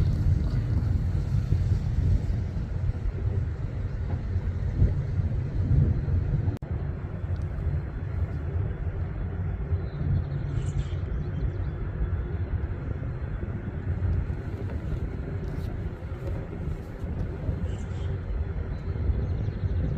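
A low, steady outdoor rumble, with two faint high chirps about halfway through and near the end.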